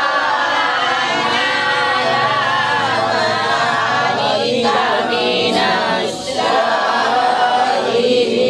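Several voices chanting a recitation together, a man leading through a hand microphone, with brief breaks between phrases a little past the middle.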